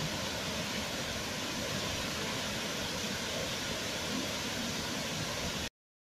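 A waterfall rushing steadily, a full curtain of water falling into a pool, which cuts off abruptly near the end.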